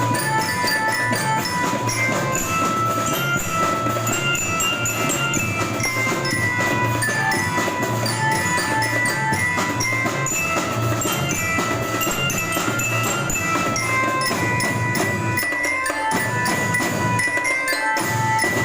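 School drum band playing: metal mallet instruments like bell lyres ring out a stepwise melody over steady snare and bass drum beats.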